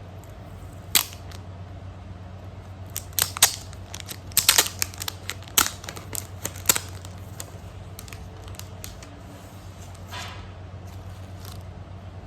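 A run of sharp clicks and taps from small objects or packaging being handled, thickest in the middle of the stretch, over a steady low hum.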